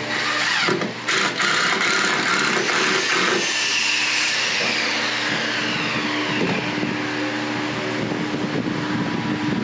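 Power tool running from under a second in, then winding down with a falling whine over several seconds, over a steady background hum.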